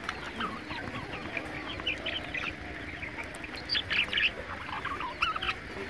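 A flock of budgerigars chirping and chattering in many quick, short high calls, busiest about four seconds in.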